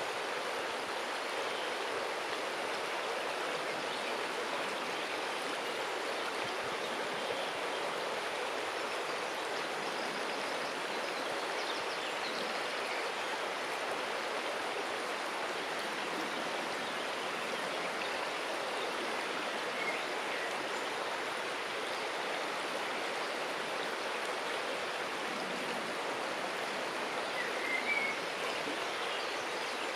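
River water flowing steadily around a stone, an even rushing and rippling with no let-up. Two faint, short, high sounds come about two-thirds of the way through and near the end.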